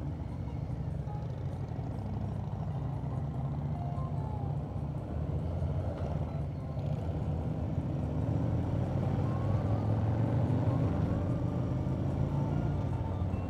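Harley-Davidson V-twin motorcycle engines pulling away from a stop and accelerating along the road, a steady low running sound that grows a little louder in the second half.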